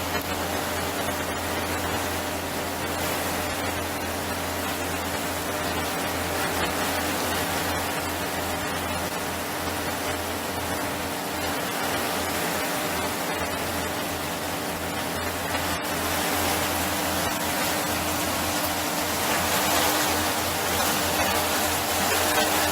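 Steady rushing noise of wind and water over a low, steady motor hum, as on a boat underway; it grows a little louder about two-thirds of the way through.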